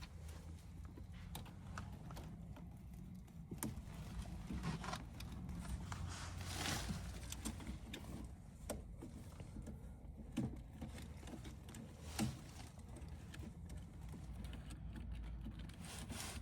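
Scattered small clicks, taps and knocks from hands and a screwdriver working wires into an HVAC air handler's control board, with a brief rustle partway through, over a steady low hum.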